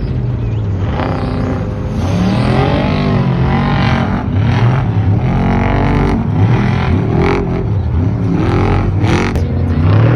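Off-road race truck engines revving hard, the pitch rising and falling again and again as the trucks race.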